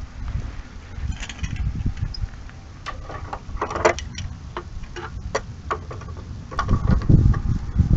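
Scattered light metallic clicks and taps of hand work at a portable generator's carburetor fuel line, over a low rumble that swells near the end.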